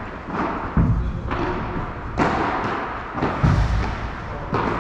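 Padel rally: a string of sharp racket strikes on the ball and ball bounces on the court, some with a heavier thud, coming about every half second to a second and echoing in a large indoor hall.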